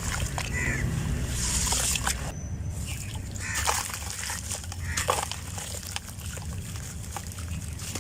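Black sand-cement shapes crumbling, a run of grainy crackles and small clicks over a low rumble.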